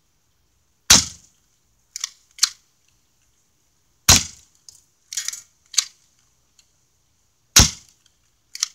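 Airsoft gun fired three times, about three and a half seconds apart, each shot a sharp crack as BBs are aimed at an old camera; fainter short clicks and knocks come between the shots.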